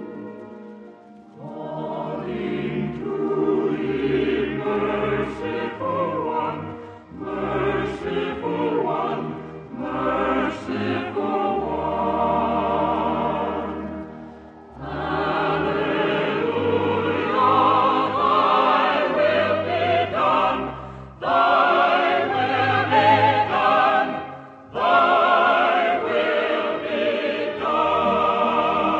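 Choir singing with orchestra in phrases broken by short pauses, growing louder and fuller about halfway through.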